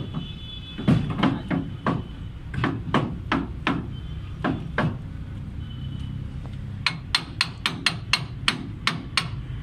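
Hammer blows on a steel kingpin, driving it into a Bedford truck's front steering knuckle. The metal-on-metal strikes come in uneven groups, then a quicker run of about nine sharper, ringing taps, roughly four a second, in the last few seconds.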